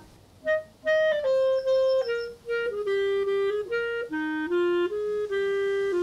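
Background music: a solo woodwind melody of short notes moving up and down, with a brief pause just after the start.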